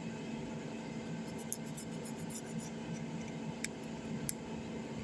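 Light scratching of a tool scraping old screen adhesive off a phone's frame, with a few small sharp ticks, over a steady low hum.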